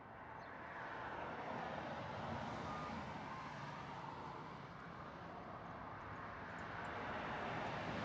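Road traffic: a passing vehicle's engine and tyre noise, swelling in the first second and staying loud.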